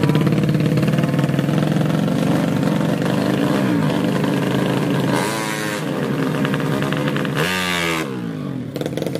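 Tuned 130cc underbone drag bike engine held at high revs on the start line, then revved hard twice with sharply rising pitch, the second rev about two and a half seconds after the first as the bike launches.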